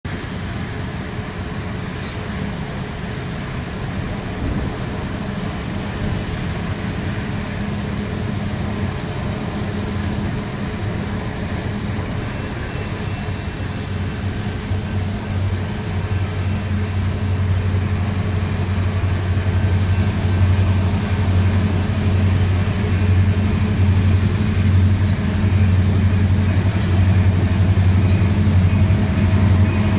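Two diesel-electric freight locomotives, a Union Pacific and BNSF lash-up, working under power as they approach with a tanker train. Their engines make a steady low drone that grows louder.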